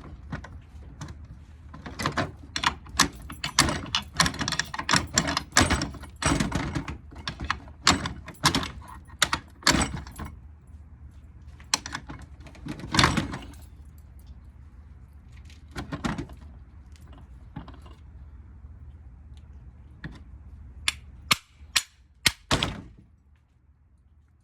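Metal tools and parts of a ceiling fan motor clinking, knocking and scraping as the motor is dismantled for its copper winding. A busy run of rapid knocks fills the first ten seconds, a few single knocks follow, and several sharp clicks come near the end.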